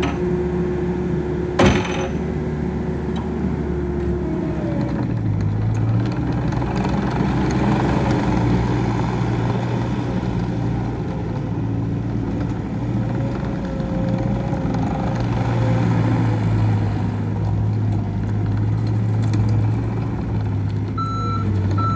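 2019 John Deere 317G skid steer loader's diesel engine running steadily, with a sharp clank about two seconds in; the engine then speeds up about four to five seconds in and holds the higher speed. Its reversing alarm starts beeping near the end.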